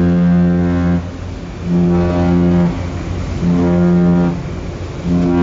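Warship's horn sounding a series of short blasts, each about a second long with brief gaps, a warning signal to fast boats closing on the ship. Wind and sea rumble sit underneath.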